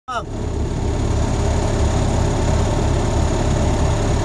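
Armoured military vehicle's engine running with a steady, pulsing low throb, heard from inside the cab.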